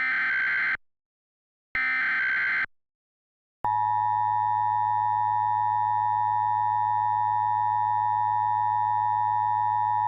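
Emergency Alert System signal: the last two bursts of the SAME header's digital data tones, about a second each with a second's gap. Then, about three and a half seconds in, the steady EAS attention tone begins and holds.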